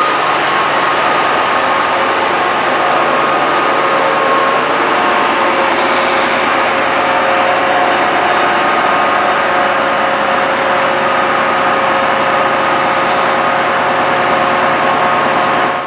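Class 68 diesel locomotive idling at a standstill: a steady, loud engine drone with constant whining tones on top that do not change.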